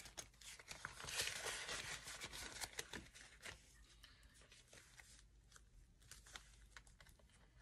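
Faint rustling and light taps of paper cash and envelopes being handled. The rustling is busiest over the first three seconds or so, then thins to scattered soft clicks.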